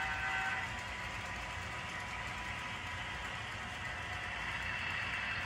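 HO scale model train sound: a horn sounding steadily stops about half a second in, then a steady diesel-engine-like rumble with hiss carries on and grows slightly louder near the end.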